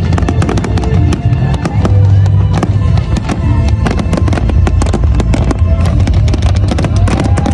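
Fireworks display: rapid, dense bangs and crackles of bursting shells, over loud music with a heavy bass.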